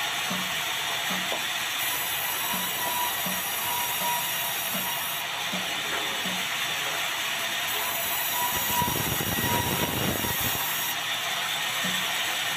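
A mechanism running with a steady clatter and a soft regular knock about every three quarters of a second; a louder low rumble swells in the second half, then the knocks resume near the end.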